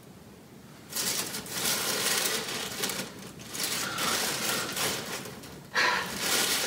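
Tissue paper rustling and crinkling as it is pulled out of a paper gift bag, starting about a second in, with a short louder burst of voice near the end.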